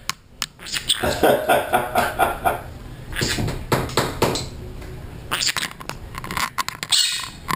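Pineapple green-cheeked conure tapping and pecking at the camera with its beak, a quick irregular run of sharp clicks, with stretches of low talky chatter from the bird in between.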